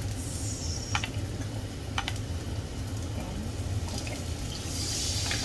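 Fish sauce cooking in a pan, with a few sharp taps of a utensil about a second apart over a steady low hum. Near the end a hiss swells up as liquid hits the hot pan.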